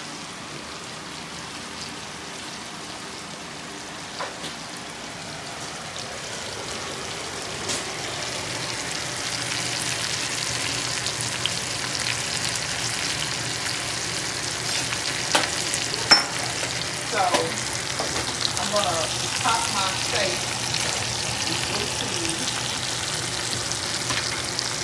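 Steak, mushrooms and onions sizzling in a cast-iron skillet on a burner that has been switched off but is still hot. The sizzle grows louder about a third of the way in, with a few sharp clicks in the second half.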